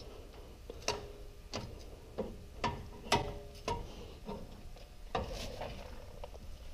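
Metal hand tools clicking and clinking on steel, a sharp click about every half second, some ringing briefly, as front brake caliper bolts are snugged up.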